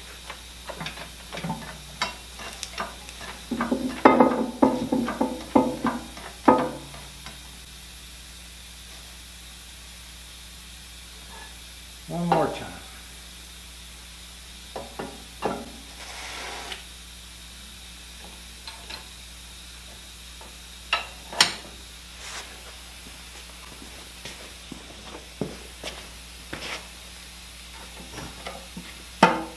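Scattered metal clinks and rattles of a lifting chain, hook and clamp on a shop engine hoist being repositioned by hand. A longer spell of rattling comes about four seconds in and a single heavier clunk about twelve seconds in.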